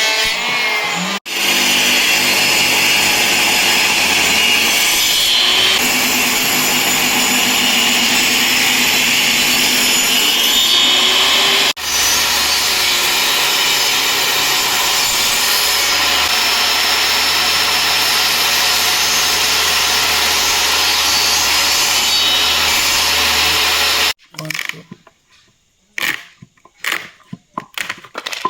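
A power tool working wood: a loud, steady whirring grind with two very brief dropouts. It stops about 24 seconds in, leaving scattered light knocks and clicks.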